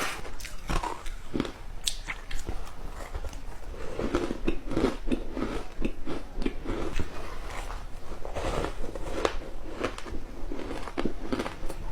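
Close-up crunching and chewing of ice: repeated irregular bites and crunches of flaky ice.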